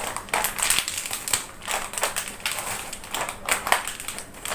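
Plastic potato chip packet crinkling and crackling in irregular bursts as it is twisted and pulled, someone straining to tear it open with one hand.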